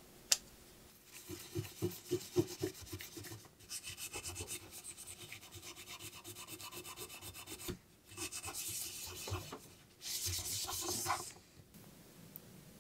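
Rubbing strokes: a sharp click just after the start, then uneven strokes, a run of quick, even strokes, and two bursts of rougher rubbing near the end.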